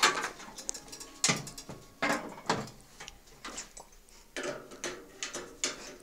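Irregular sharp clicks and knocks, about a dozen, of a hand wrench and loose parts being handled while unscrewing fittings on an old Centrales washing machine.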